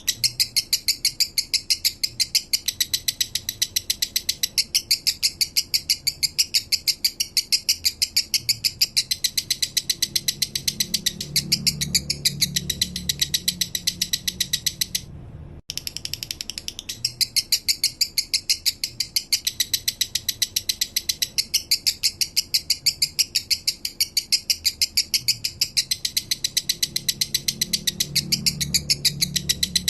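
Male lovebird singing a long, fast chattering run of high chirps, about five a second, in the slow 'minor' style, with a brief break about halfway through.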